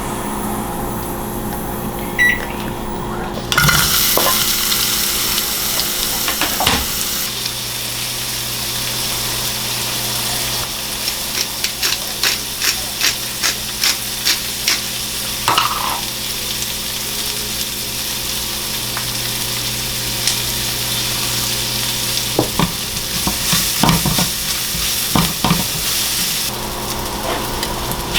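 Beef noodle stir-fry sizzling in a hot pan as it is stirred, the sizzle rising sharply about three and a half seconds in. A run of quick knocks and scrapes of the utensil against the pan comes around the middle, with more near the end, over a steady low hum.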